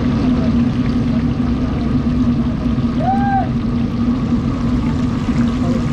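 Fish deep-frying in a large wok of hot oil, the oil bubbling and sizzling steadily over a steady low hum.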